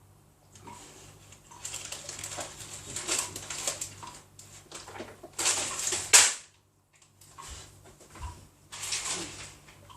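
Irregular rustling and handling noises in short bursts, the loudest just after six seconds, over a low steady hum that cuts off at the same moment.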